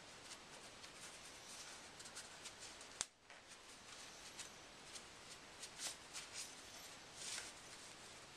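Faint rustling and rubbing of a shop towel wiped along the barrel and frame of a field-stripped Ruger SR22 pistol, with one sharp click about three seconds in.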